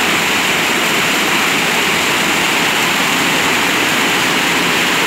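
Steady, loud rush of river water pouring over a weir and churning in the pool below, with no let-up.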